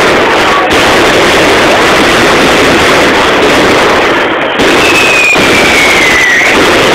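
Many fireworks and firecrackers going off at once: a loud, dense, unbroken crackle and banging. About five seconds in, a thin whistle sounds for over a second, falling slowly in pitch.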